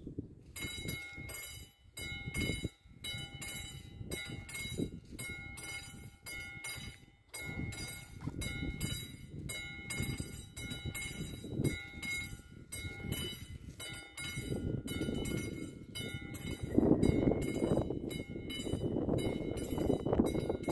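Railroad crossing warning bell starting up about half a second in and then ringing steadily at about two strokes a second, the sign that the crossing's warning has switched on for an approaching train. A low rushing noise grows louder near the end.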